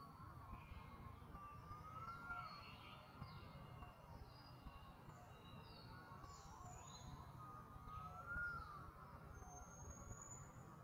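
Faint outdoor ambience: scattered short bird chirps and a slow rising-and-falling tone every few seconds, over a low rumble.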